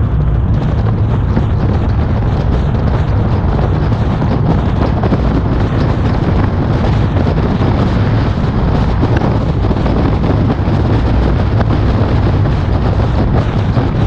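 Wind rushing over a bonnet-mounted camera's microphone together with the car's engine and tyre noise while driving at speed, loud and steady, deepest at the low end.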